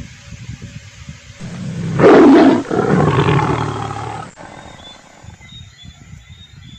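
A tiny kitten growling loudly for about three seconds, starting about a second and a half in, over soft irregular low rustling.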